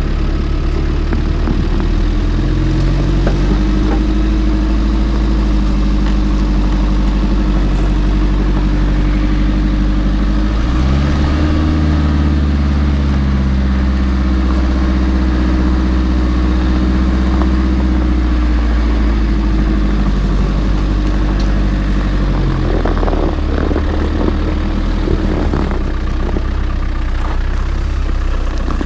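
Land Rover Defender 90 engine running as the truck drives, its note shifting with revs: the pitch changes about 11 seconds in and again near 22 seconds.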